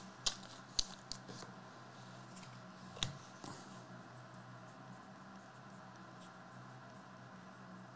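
Trading cards and their packaging being handled on a table: a few light taps and scrapes in the first second and a half, and a sharper click about three seconds in. A low steady hum lies underneath.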